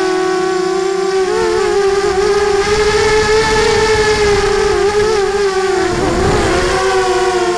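Brushless motors and propellers of a 230-size FPV racing quadcopter, heard through its onboard camera: a steady whine whose pitch wavers with throttle. Around six seconds in the pitch dips and there is a brief low rush of air.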